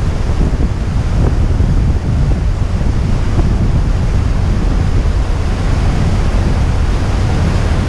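Wind buffeting the microphone on a moving tour boat: a loud, steady, rumbling rush with no breaks.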